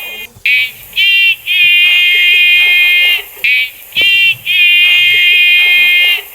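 The junk-dealer's cry "eskici" called out twice, run through a voice effect that leaves only a thin, high-pitched buzzy tone: each call is two short syllables and a long held last one.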